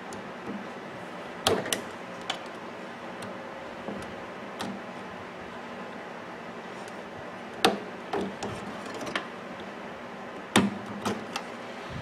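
Small sharp clicks and knocks of pliers and wire connectors as wires are pulled off the terminals of a microwave oven's high-voltage transformer, in three short bursts, over a steady low hum.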